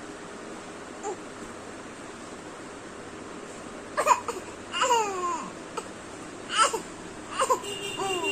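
A baby babbling to itself: about five short vocal sounds in the second half, several sliding down in pitch.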